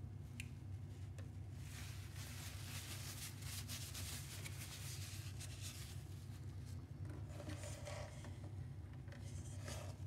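Soft rustling and rubbing of hands, a paper tissue and the plastic lid of a single-serve pod coffee maker as the lid is lifted and the tissue is worked into the pod holder, over a steady low hum.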